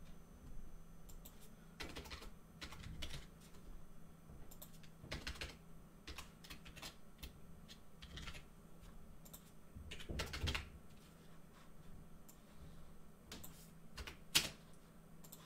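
Typing on a computer keyboard: scattered, irregular keystrokes, with one sharper click near the end, over a faint steady hum.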